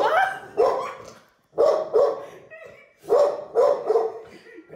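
Dog barking in short runs of two or three loud barks, with brief pauses between the runs.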